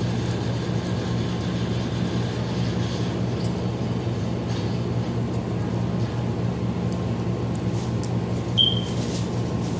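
A steady low hum runs throughout, with faint small metal clicks and scrapes from a lockpick being worked in the lock of toy handcuffs. A short high squeak sounds near the end.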